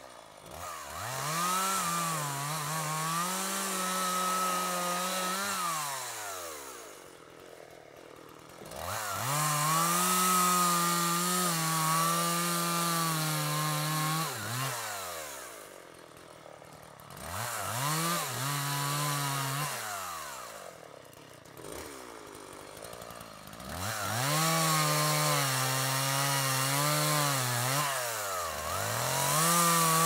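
Two-stroke chainsaw cutting through a felled tree trunk. The engine revs up to full throttle and holds for a few seconds at a time, its pitch wavering under load, then drops back to idle. This happens four times, with a fifth rev-up starting near the end.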